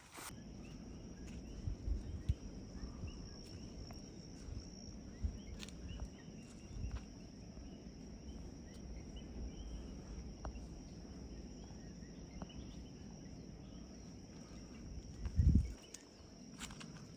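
Insects chirring steadily at a high, even pitch, over low wind rumble on the microphone with scattered low thumps, and one louder low thump about fifteen seconds in.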